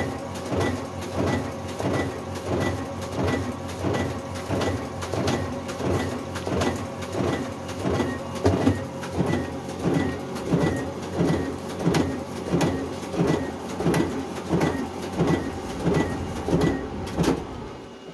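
Ricoh DX2430 digital duplicator running a print job on thick card stock, a regular clacking feed-and-print cycle of about one and a half sheets a second. The cycle stops right at the end.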